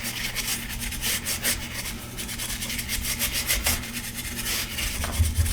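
Quick repeated scrubbing strokes of dust being cleaned off a battery charger's parts, several strokes a second.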